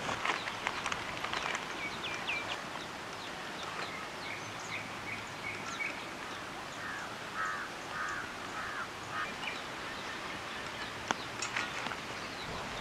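Birds calling over a steady outdoor background hiss: a quick run of short high chirps about two seconds in, then a series of five rounded, evenly spaced notes around seven to nine seconds in, with a few light clicks.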